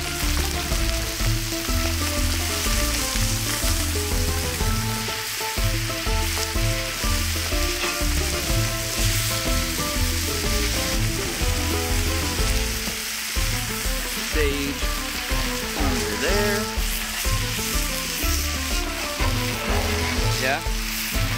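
Striped bass fillets, tater tots and cauliflower sizzling steadily on a hot griddle over a wood fire.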